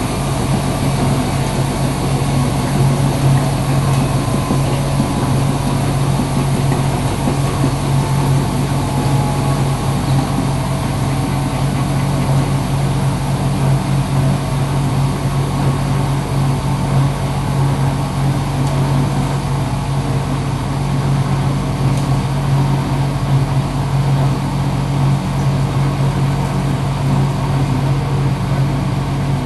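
Front-loading washing machine running on a coloured cottons 40° wash: a steady low hum with a constant hiss over it.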